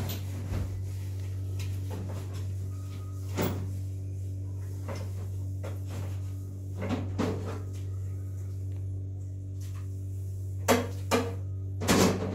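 Scattered knocks and clicks from kitchen work, with a few louder knocks close together near the end, over a steady low hum.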